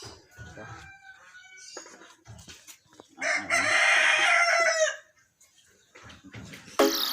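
A rooster crows once, loud and about two seconds long, some three seconds in, with fainter clucking before it. Music with a steady beat starts just before the end.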